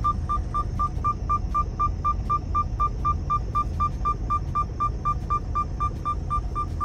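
Freightliner truck's low-air warning alarm beeping rapidly and evenly, about four short high beeps a second, over the diesel engine idling. The alarm signals that park-brake air pressure is low and the brakes may drag.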